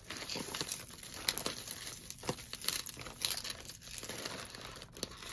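Plastic bag crinkling and rustling as a tangle of costume jewelry is pulled out of it, with scattered light clicks of the pieces knocking together.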